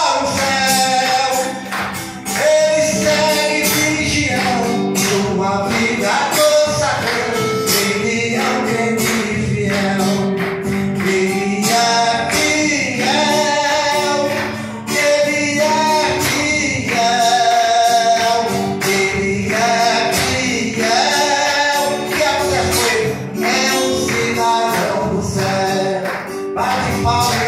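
A man singing a gospel praise song into a hand microphone, over musical accompaniment with a steady beat.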